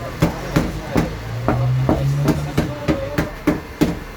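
Light, rapid hammer taps on a car fender's sheet metal, about three a second, as a dent is worked out without repainting. A low hum sounds underneath for about a second in the middle.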